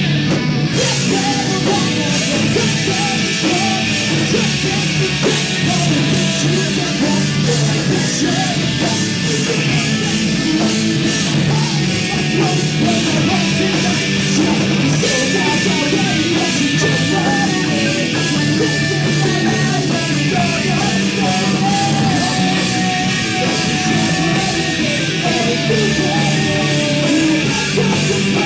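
Loud live rock music, with distorted guitar and drums and a voice yelling or singing over it.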